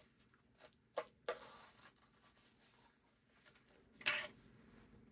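A ribbon being untied and pulled off a small cardboard gift box: scattered short rustles, scrapes and clicks, with the loudest rustle about four seconds in.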